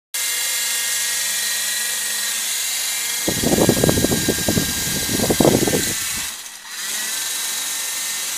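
Small DC motor of a toy helicopter spinning its rotor blade as a fan, a steady high whine. From about three seconds in, the fan's air buffets the microphone with low rumbling gusts for a few seconds. The whine dips briefly and comes back about six and a half seconds in.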